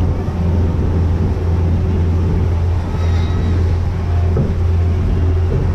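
Motorboat under way at speed: a steady low engine drone mixed with the rush of the wake and wind.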